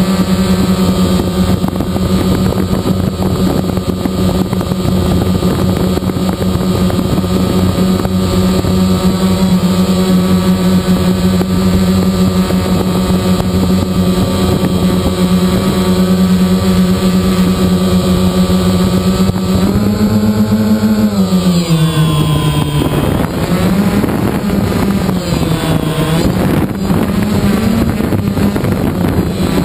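DJI Phantom quadcopter's motors and propellers humming steadily, picked up by the GoPro on board. About two-thirds through the pitch rises briefly, then drops and wavers as the drone comes down lower.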